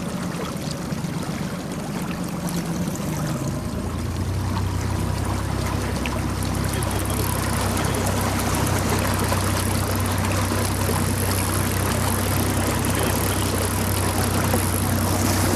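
Outboard motor on an inflatable PVC boat running at low speed, its pitch dropping a few seconds in and then holding steady, with water rushing along the hull.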